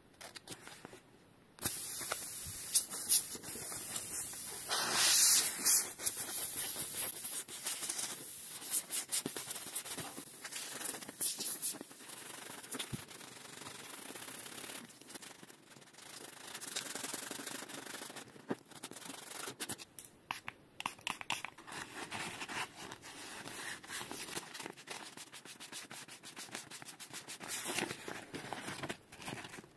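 Sandpaper scuffing a rubber bicycle inner tube in quick back-and-forth strokes, roughening the rubber around the puncture to prepare it for a patch. It starts about a second and a half in.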